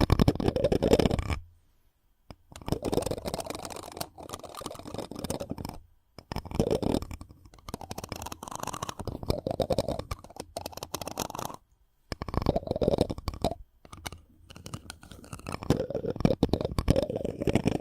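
Close-miked ASMR friction sounds: something rubbed and scratched directly against the microphone in bursts of a few seconds, with short silent pauses between them.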